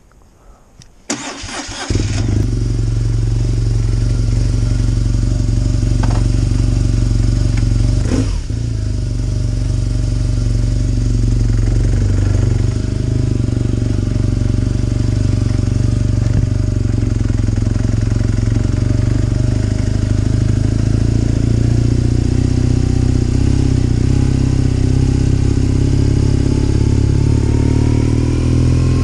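BMW R nineT's flat-twin boxer engine cranking over and catching about two seconds in on a cold start at minus two, then running steadily at a low idle, a sound the owner calls rough and puts down to the cold. Near the end the engine note rises as the bike pulls away.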